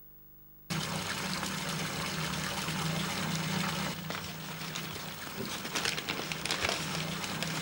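Foil and paper wrappers crinkling and rustling as a hand rummages through them, starting suddenly about a second in, over a steady low hum.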